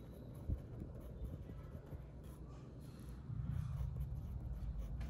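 Faint scratchy writing strokes over a low steady hum, with a single sharp click about half a second in.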